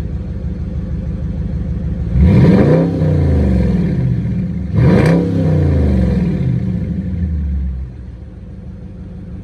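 2018 Dodge Charger R/T's 5.7-litre Hemi V8 idling, revved twice with quick throttle blips: each time the pitch jumps up sharply, then sinks back down over a couple of seconds. Near the end it settles to a lower, quieter idle.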